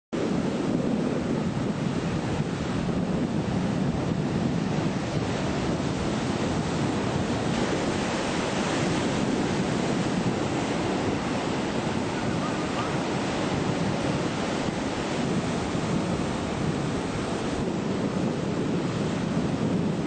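Ocean surf: waves breaking and rushing, a steady wash of noise without let-up, with wind on the microphone.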